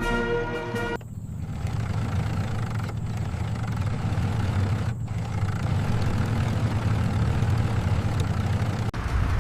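Engine idling steadily with a low rumble. Music cuts off about a second in and comes back near the end.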